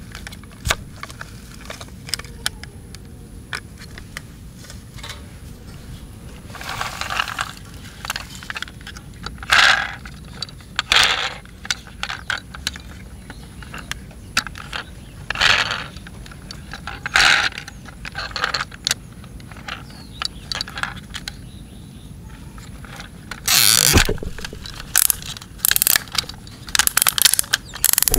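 Small plastic and metal toy fire truck parts being handled: ladders clicked into place and turned, with scattered rattles, clicks and scrapes, coming thickest near the end.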